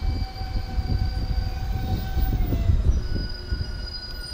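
JR Central 311 series electric train running on the rails: heavy wheel rumble with a steady whine in several pitches that switches to a different set of tones about three seconds in.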